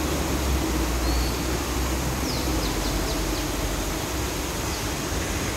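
Steady rushing and splashing of a multi-jet plaza water fountain, over a low steady hum, with a few faint high chirps around the middle.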